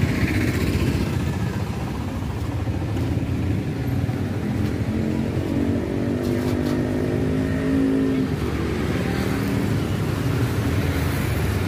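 Road traffic: a steady rumble of passing vehicles, with one engine coming through louder for a few seconds in the middle.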